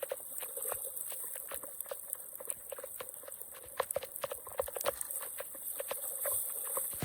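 Water trickling with many irregular small drips and splashes, a quick uneven pattering.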